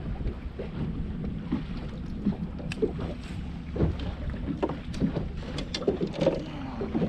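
Small wind-driven waves lapping and slapping against the hull of a bass boat, a run of irregular sharp splashes and knocks over a low rumble, with wind buffeting the microphone.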